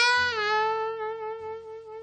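Alto saxophone in a slow jazz ballad, sliding down at the start and then holding a long note, with double bass notes low beneath it.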